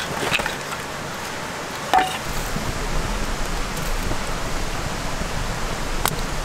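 Wood fire burning, a steady hissing crackle with an occasional sharp pop, one near the end. It starts after a short knock about two seconds in.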